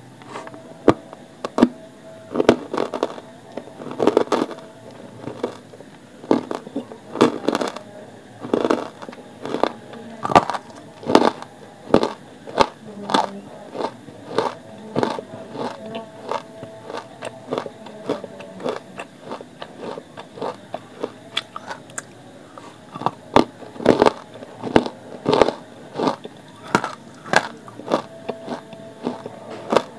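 A person biting and chewing hard, dry chunks of grey clay close to the microphone: a run of sharp crunches, about one every half second to a second.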